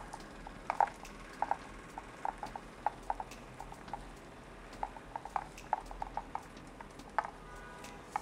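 Light, irregular clicks and taps of plastic parts and cables being handled and routed inside a PC case, several a second at times, with a sharper click right at the start.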